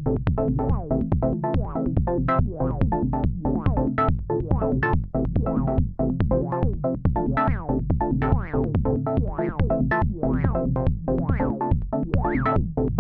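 Moog DFAM, Subharmonicon and Mavis analog synthesizers playing a patch together: a fast sequenced run of short plucky notes over a steady low drone. Pitch-sweeping "woop-woop" tones slide down and back up, more prominent from about halfway through.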